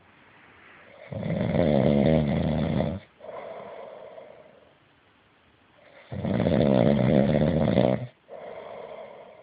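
A sleeping person snoring heavily: a loud rattling snore begins about a second in and another about six seconds in, each lasting about two seconds and each followed by a softer breath out.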